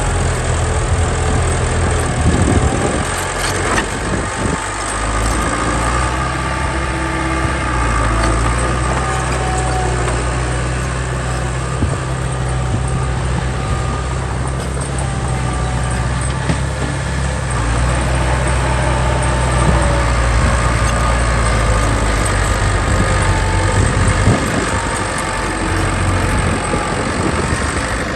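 Heavy diesel engine of earthmoving machinery running steadily, a deep low rumble with wavering higher tones over it.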